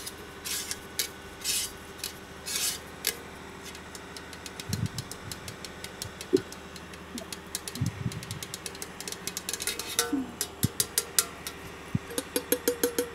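Small hard objects clicking and clattering as they are handled, with a run of quick rattling clicks near the end.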